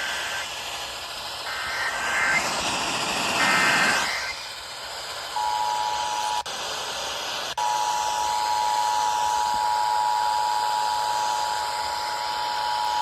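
Emergency Alert System broadcast alert: three short bursts of the warbling digital SAME header, then the steady two-tone attention signal (853 and 960 Hz) starting about five seconds in. The tone cuts out briefly with a click about a second later, then resumes and holds, all over a background hiss.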